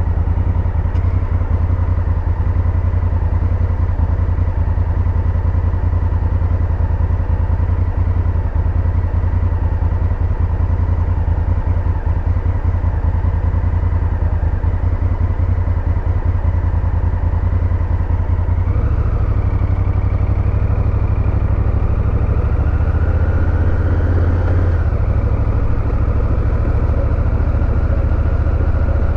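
Honda Africa Twin parallel-twin engine running steadily at low revs, a deep, even rumble. The engine note shifts up a little about two-thirds of the way through and changes again near the end.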